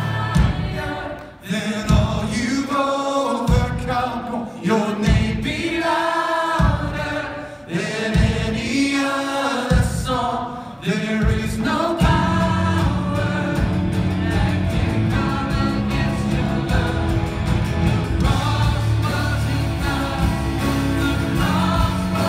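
Live contemporary worship band with several singers and acoustic guitar performing a worship song. The first half comes in sung phrases with pauses in the low end, and the full band with bass comes in about halfway through.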